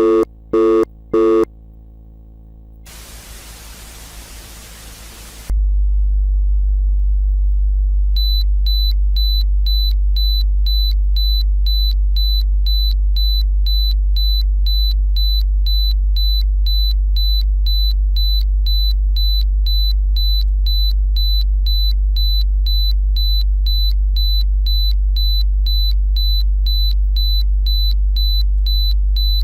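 A few short phone beeps as the call cuts off, then a burst of static about three seconds in. A loud, steady low electronic drone follows, with a short high-pitched beep about twice a second from about eight seconds in.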